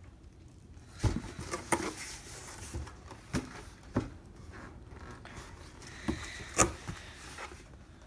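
Cardboard box being handled and turned: scattered taps, knocks and light scrapes of hands and box edges on the cardboard, the sharpest knock about six and a half seconds in.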